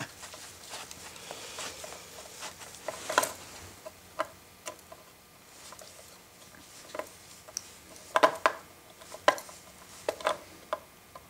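Scattered light clicks and taps at irregular intervals, the handling of a small metal bit being worked by hand in a hole in a plywood jig, with a quick cluster of clicks a little past the middle.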